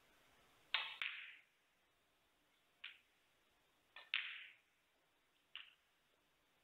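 Snooker balls clicking as a shot is played: the cue tip striking the cue ball and balls striking each other. Each is a sharp clack with a short ring: two in quick succession about a second in, then single or paired clacks near three, four and five and a half seconds.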